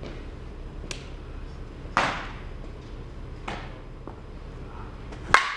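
Sharp knocks of softballs being hit and striking the batting cage, four in all. The loudest, a bright crack near the end, fits a composite slowpitch bat, the 2014 DeMarini CL22, meeting the ball. The knock at about two seconds is also loud, with a ringing tail.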